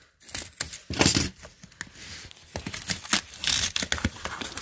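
Cardboard and plastic packaging being rustled, torn and handled as a box of toys is unpacked: irregular crinkles and scrapes with a louder knock about a second in.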